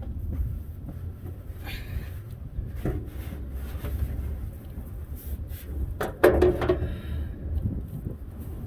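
Hand work on the truck's engine: a few light knocks and a brief louder clatter and scrape about six seconds in, as parts are handled while fitting the fuel pump, over a steady low rumble of wind on the microphone.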